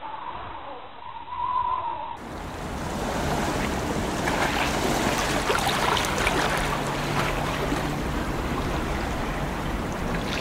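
A short musical logo jingle ends about two seconds in, then sea waves wash and splash against a rocky shore.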